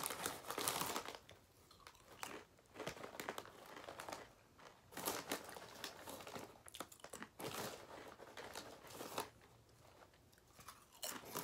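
A crinkly potato chip bag rustling in a string of short bursts as a hand reaches in and handles it, with some crunching of the chips.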